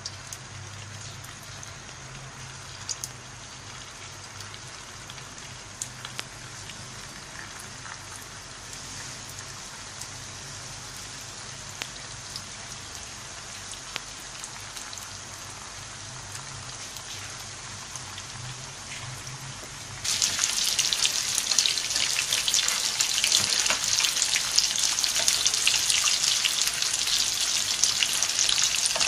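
Spring rolls deep-frying in hot oil in a kadai: a light, steady sizzle with scattered pops. About two-thirds of the way through it jumps suddenly to a much louder, denser sizzle as the rolls fry toward golden brown.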